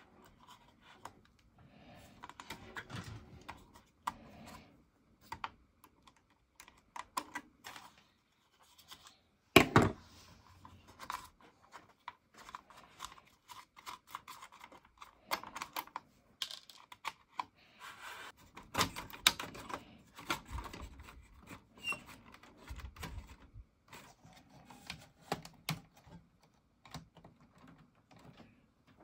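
Irregular clicks, taps and knocks of hands and a tool working on an Aiwa AD-3150 cassette deck's front panel and record-level control during disassembly, with one sharp knock about ten seconds in.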